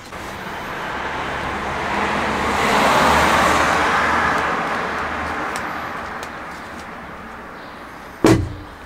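A vehicle passing on the street, its noise swelling for about three seconds and then fading away over the next five. Near the end, a sharp thump as a painted wooden cabinet is set down in the van.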